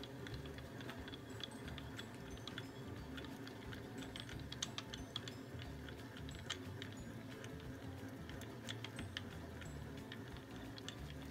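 Light, irregular clicking of a mini milling machine's table being cranked along by its handwheel and leadscrew, over a low steady hum.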